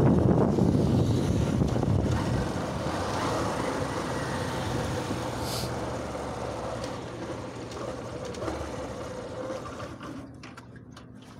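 Motorcycle riding and slowing to a stop, wind rushing over the microphone and the engine and road noise fading steadily as the bike comes to rest. A few faint clicks near the end.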